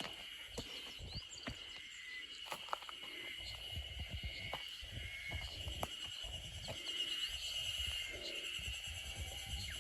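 Outdoor forest ambience: a steady, high insect drone and short bird chirps, over irregular low thumps.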